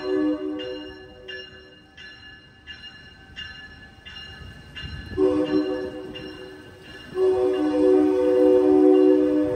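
Amtrak Capitol Corridor train's multi-note air horn sounding as the train departs, with a bell ringing at a steady beat of about one and a half strikes a second. The horn chord cuts off just after the start, then blows again about halfway through, with a short break before a longer final blast.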